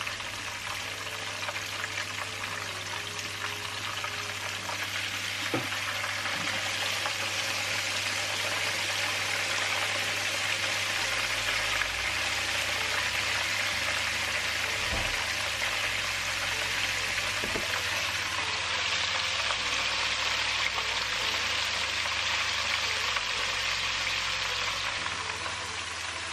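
Two whole snappers frying in a wide pan of vegetable oil: a steady sizzle that grows a little louder after about seven seconds.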